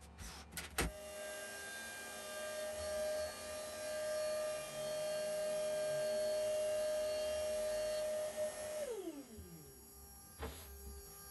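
A high-speed electric motor runs at a steady high pitch with a rushing hiss for about eight seconds, then switches off and spins down, its whine falling away over about a second. A few sharp clicks come just before it starts.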